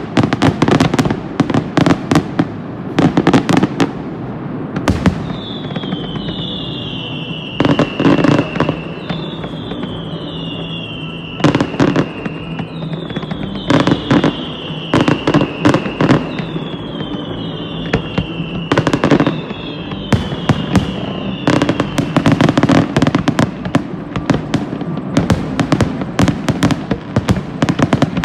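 Fireworks display: a dense string of sharp bangs and crackles. For much of the stretch it is joined by many overlapping whistling shells, each a high whistle that falls slightly in pitch over a second or so.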